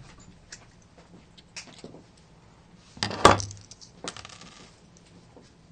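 Small circuit boards and plugs handled on a tabletop: scattered light clicks and clatter, the loudest a sharp clack about three seconds in.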